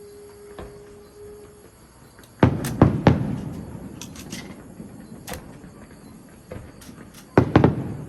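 Fireworks going off: a quick cluster of three or four loud bangs about two and a half seconds in, a few fainter pops, then another cluster of bangs near the end, each with a trailing rumble.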